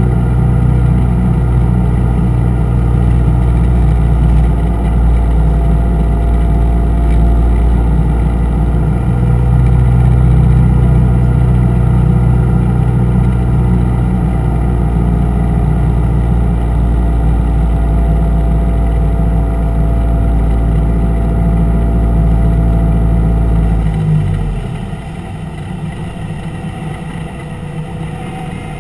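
Single-engine Cessna's piston engine and propeller heard from inside the cockpit, running steadily at approach power. About 24 seconds in the throttle comes back to idle and the sound drops suddenly to a quieter, lower idle as the plane flares and touches down on the runway.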